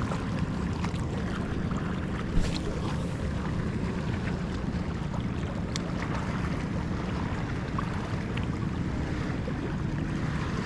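Fishing boat's diesel engine running steadily at sea, with wind on the microphone. A single knock sounds about two and a half seconds in.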